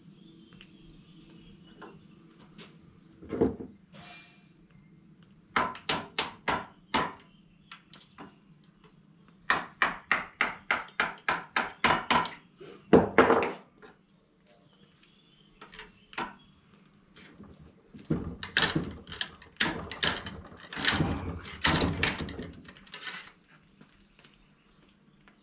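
Runs of quick, sharp knocks and taps, several a second, with pauses of a few seconds between them, from a muzzleloading rifle and its loading gear being handled as the rifle is loaded by hand.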